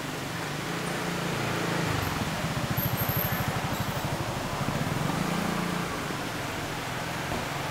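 Low hum of a motor vehicle's engine, swelling from about two seconds in and easing off near six seconds, over the steady rush of shallow flowing river water.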